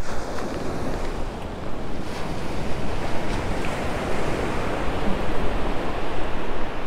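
Ocean surf breaking and washing up the beach in a steady hiss, with wind buffeting the microphone.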